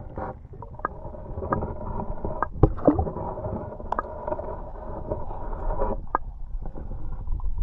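Muffled underwater sound from a camera submerged in the river: a low rumbling churn of water with scattered clicks and knocks, the loudest a couple of knocks about three seconds in.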